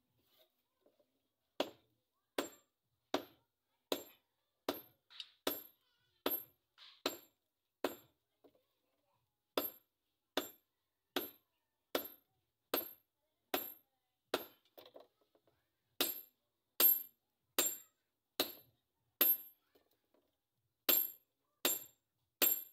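A hand hammer strikes red-hot steel on a small anvil while a bolo blade is forged. The blows come steadily a little more than one a second, each with a short, bright metallic ring, in four runs with brief pauses between them.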